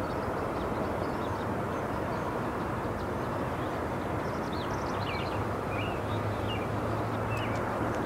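Steady outdoor background noise with a low hum. A few faint, short bird chirps come in about halfway through.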